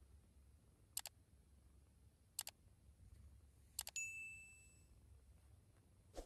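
Subscribe-button sound effect: three quick double mouse clicks about a second and a half apart, the last followed by a short bell-like notification ding that rings out for about a second.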